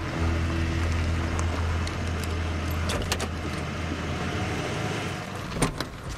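Ford pickup truck's engine running low and steady as the truck rolls up and stops, its hum dying away about five seconds in. A few sharp clicks follow near the end.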